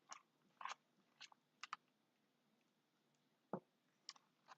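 Faint, scattered sticky squelches and clicks of chunky, half-formed borax slime being stirred and handled, about seven short sounds spread over a few seconds.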